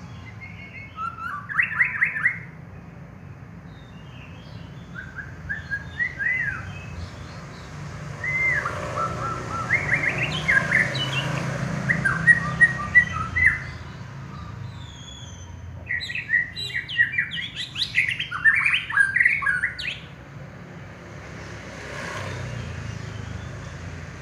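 White-rumped shama (murai batu) singing in four bursts of quick, varied whistled phrases, the longest in the middle and near the end, over a low steady hum.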